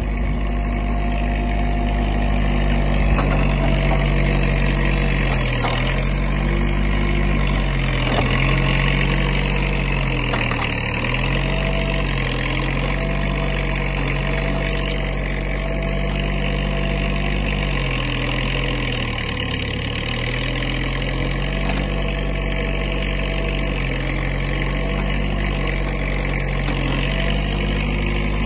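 Bobcat skid-steer loader's engine running steadily while it works a backhoe attachment. The engine note sags briefly several times as the hydraulics load it, and a faint high whine comes and goes over it.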